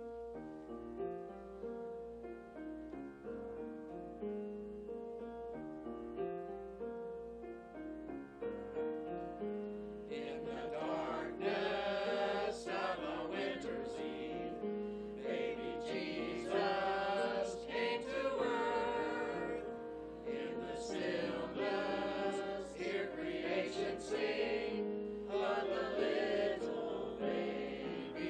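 Small mixed choir singing a Christmas cantata song over instrumental accompaniment. The accompaniment plays alone for about the first ten seconds, then the voices come in.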